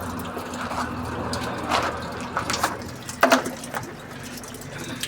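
Water running in a small tiled room, with a few sharp knocks or clatters about two and three seconds in, the last the loudest.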